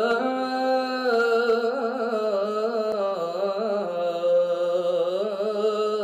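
A voice chanting one long, drawn-out wordless note in the melodic style of Arabic du'a recitation, its pitch wavering through ornamented turns before settling steadier near the end.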